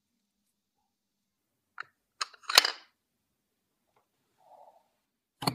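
Plastic plunger-type mooncake mold clicking and knocking: a few sharp clicks about two seconds in, the loudest near the middle, then a hard knock with a dull thud near the end as the mold is pressed down on the board.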